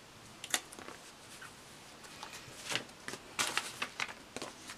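Paper sticker sheets being handled and shuffled: a light tap about half a second in, then crisp rustling and small clicks in the last two seconds.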